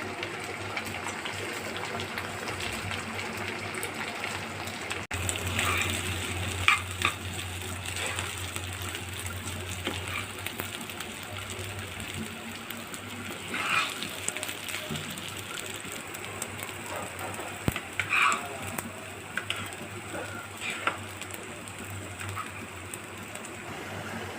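Food sizzling as it fries in a pan and is stirred, with occasional scrapes and clicks of the stirring utensil against the pan.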